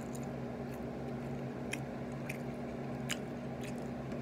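A person chewing chicken nuggets, with a few sharp wet mouth smacks spread through the chewing, over a steady low hum.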